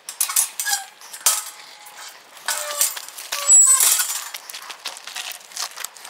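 Metal gate clanking and clinking as a bike is pushed through it: a run of sharp metallic knocks with short ringing, loudest a little past the middle.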